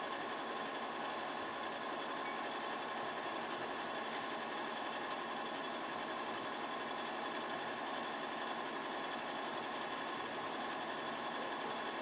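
Steady hiss with a faint even hum, no speech or music: the room tone of a quiet hall.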